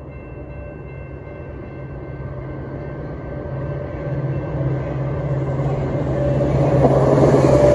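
Metra commuter train of bilevel gallery cars approaching at speed, a steady low rumble with rising wheel-on-rail noise that grows steadily louder, loudest near the end as it reaches the platform.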